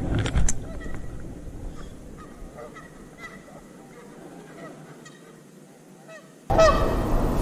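Geese honking over and over, faint and distant at first, then much louder from about six and a half seconds in. A few sharp knocks near the start.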